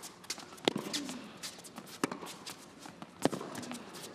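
Tennis ball struck back and forth with rackets in a rally, three sharp hits about 1.3 seconds apart, with players' quick footsteps on the hard court between them.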